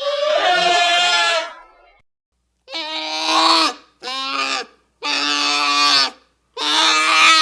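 Dinosaur sound-effect calls: five pitched animal calls with short gaps between them, the first about two seconds long and the others about a second each.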